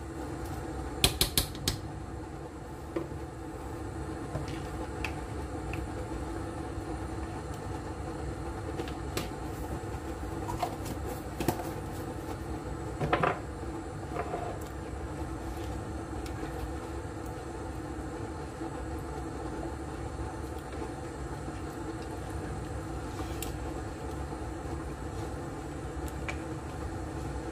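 Steady hum of a running electric cooktop's cooling fan, with a few sharp clicks of a spoon knocking against the pot about a second in and again around thirteen seconds, while a plastic spoon stirs peanut butter into the thick stew.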